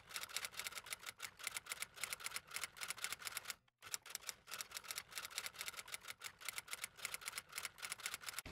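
Typewriter keystroke sound effect: rapid, even clicks at about seven a second as text is typed out letter by letter, with one short pause a little past the middle.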